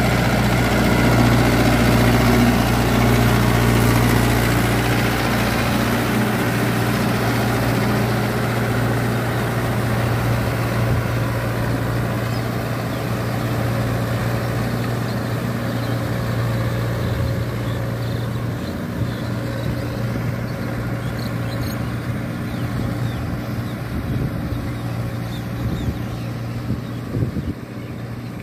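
Mahindra Yuvo 585 DI tractor's diesel engine running steadily under the load of a rotavator tilling wet paddy soil. The sound fades gradually as the tractor moves away.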